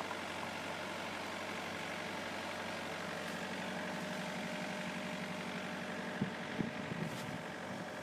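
Wood-Mizer LT70 bandsaw sawmill's engine running steadily at idle. A few wooden knocks come about six to seven seconds in as the sawn sticker boards are handled.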